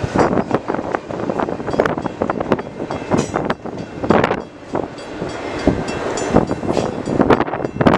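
Tail end of a CN intermodal freight train rolling past, the wheels of its last container well cars clattering over the rails in an irregular run of sharp knocks.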